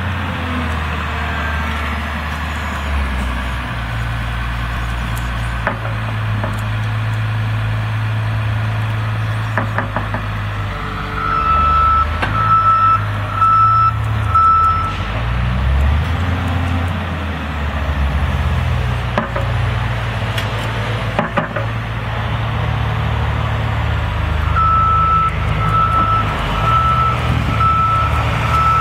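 Caterpillar 950H wheel loader's diesel engine running under load as it moves a bucket of sand, its pitch rising and falling as it works. A backup alarm beeps steadily for a few seconds around the middle and again near the end, and there are a few sharp knocks.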